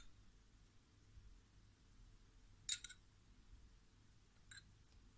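Near silence: room tone with a few faint clicks of a glass and spoon as sugar syrup is poured over a tray of basbousa, the clearest a quick double click about two and a half seconds in.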